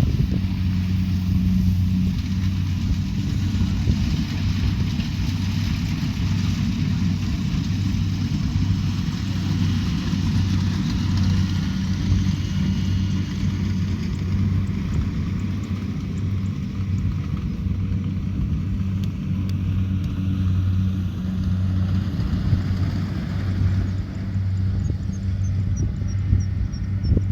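Kubota DC70 Pro combine harvester's diesel engine running steadily under load, with a constant low hum and the rattle and whir of the harvesting machinery.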